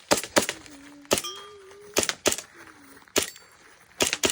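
Taran Tactical Sand Viper gas-blowback airsoft pistol firing a string of about eight sharp shots, mostly in quick pairs, the pairs about a second apart.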